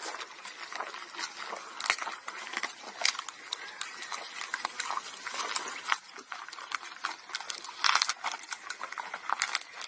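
Camel chewing a spiny prickly pear cactus pad: a steady run of irregular crunches and crackles, with louder bursts of crunching every few seconds.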